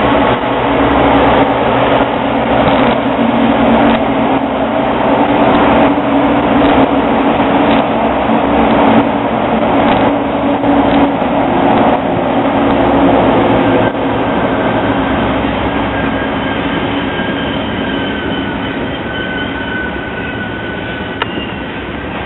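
Utah Railway diesel locomotives passing at close range, their engines droning heavily, with clicks from the wheels over the rail. In the second half the loaded coal hopper cars roll by, the sound eases off slowly, and a thin high-pitched wheel squeal comes in.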